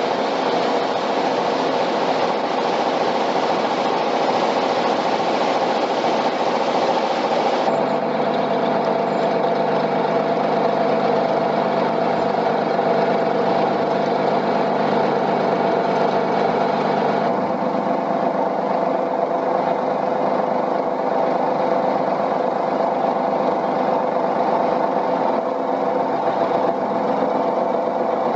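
Narrowboat's diesel engine running steadily at tick-over, a continuous mechanical hum with no breaks.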